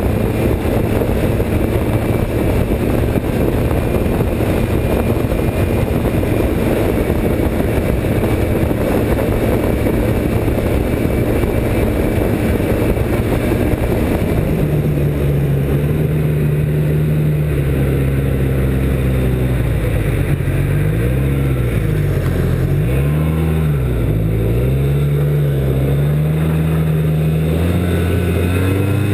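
Snowmobile engine running at speed under a dense rush of wind and track noise. About halfway through the engine note stands out as a clear drone that dips and rises several times with the throttle, then holds steady.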